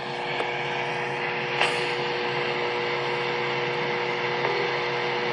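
NOAA weather radio receiver hissing with steady static and a faint low two-note hum: dead air on the weekly test broadcast. A small click about a second and a half in.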